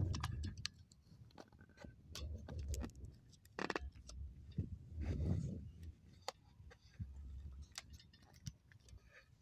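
Close handling noise on a body-worn camera: scattered sharp clicks and ticks, with sleeve rustle and a few low rumbles as the arms move right across the microphone.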